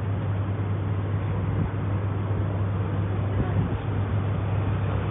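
A steady low hum over a constant background noise.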